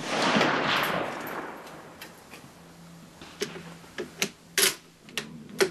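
The rolling echo of a Type 99 Arisaka rifle shot, dying away over about a second and a half, followed by a run of about six sharp metallic clicks and clacks as the rifle's bolt is worked.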